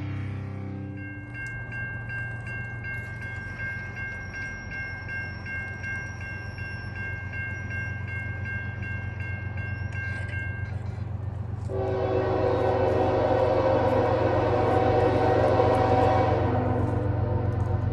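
A railroad crossing bell rings rapidly for about nine seconds over the steady low rumble of an approaching diesel freight locomotive. About twelve seconds in, the locomotive's air horn sounds a long loud chord, the loudest sound here.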